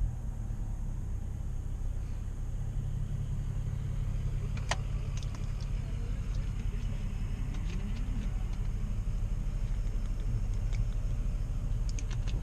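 Steady low rumble of a BMW M340i on the move, heard inside the cabin: engine and road noise, with a few light clicks and taps, one about five seconds in and several near the end.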